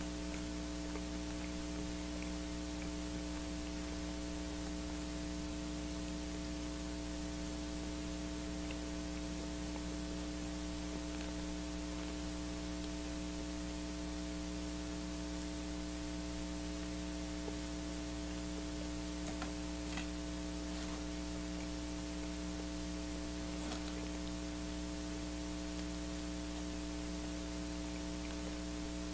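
Steady electrical mains hum with a hiss of background noise, with a few faint clicks about two-thirds of the way in.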